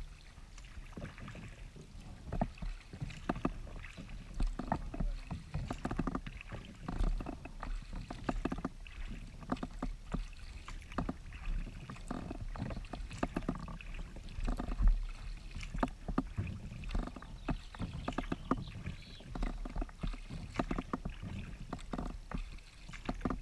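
Kayak paddle strokes on calm river water: the blades dip and splash in an irregular rhythm of about one to two strokes a second, with drips and water lapping along the hull of a Klepper Aerius II folding kayak, over a low rumble.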